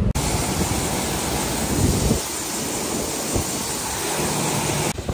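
Tractor-driven grinder-mixer running, a loud, steady rushing noise; the deep rumble under it thins out about two seconds in.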